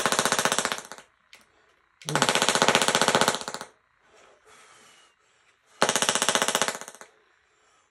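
Handheld mini Tesla coil firing its spark in three bursts, each a loud, harsh, pitched buzz of very rapid crackling pulses lasting one to two seconds, with short quiet gaps between.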